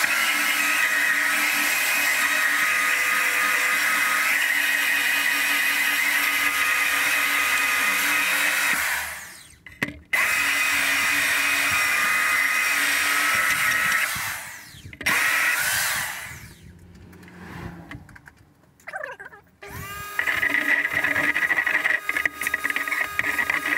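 DeWalt electric sander running on a wooden blank, flattening it so a router will not stick when pulled around it. It runs steadily, cuts off about nine seconds in, runs again until about fourteen seconds, then gives a short burst. A different steady motor sound starts near the end.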